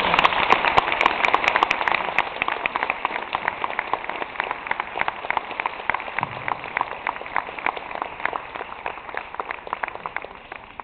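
Audience applauding: a dense burst of clapping that thins out to scattered claps and fades away near the end.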